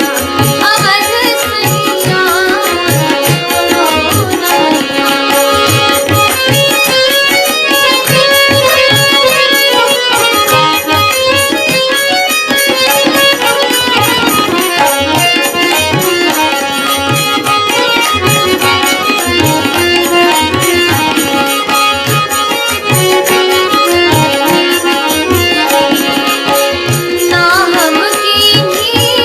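Bhajan music with tabla playing a steady rhythm of deep bass strokes under a held drone and an instrumental melody, with no singing.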